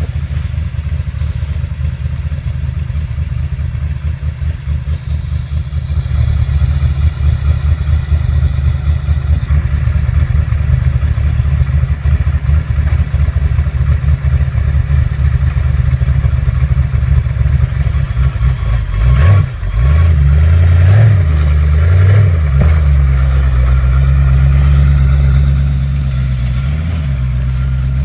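Rock buggy's engine running with a steady low rumble as it crawls over rocks. After a brief drop about two-thirds of the way through, it is revved harder in several rising and falling pulses, louder, then eases back near the end.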